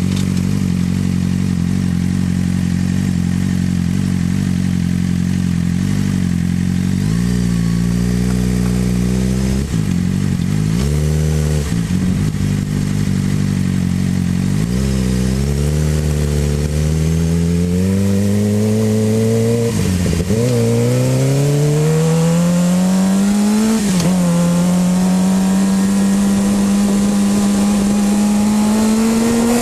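Suzuki GSX sport motorcycle's engine, running at a low, steady note while rolling slowly in traffic, with a few throttle changes. About halfway through it begins a long climb in pitch as the bike accelerates. The pitch drops briefly twice at gear changes, then holds a steady cruising note.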